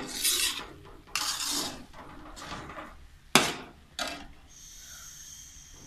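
A flat metal spatula scrapes and stirs grated carrot halwa around a metal karahi, about five strokes in the first four seconds. The loudest stroke, about three and a half seconds in, is a sharp clank against the pan. The mixture has been cooked down dry, with no water or milk left in it.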